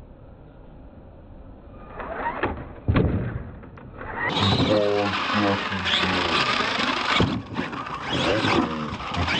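Radio-controlled monster truck on a dirt track, with a couple of sharp landing knocks a few seconds in, the loudest just before the middle. After about four seconds it gives way to loud rock music with electric guitar.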